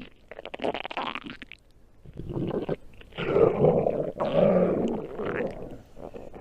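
Stomach growling: a string of gurgling rumbles, several in a row with short gaps between them, their pitch sliding up and down.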